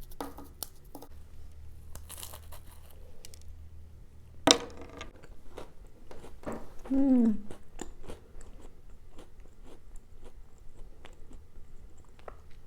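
Close-up chewing of a cracker sandwich with spread: many small crunches, with a sharper, louder crunch about four and a half seconds in. A short falling hummed "mm" comes about seven seconds in.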